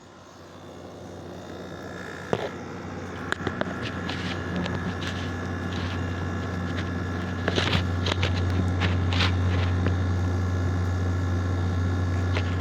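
2018 GE (Haier) 6,000 BTU wall air conditioner starting up: a steady low hum builds over several seconds and then holds, with a higher steady whine coming in early on top and scattered sharp ticks and clicks.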